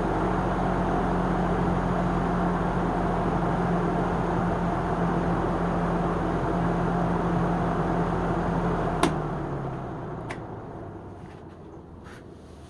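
Old Lakewood Deluxe three-speed window box fan running on low in its reversed exhaust setting, a steady motor hum under the rush of air. About nine seconds in a sharp click comes as it is switched off; the hum stops and the blades coast down, the air noise fading away.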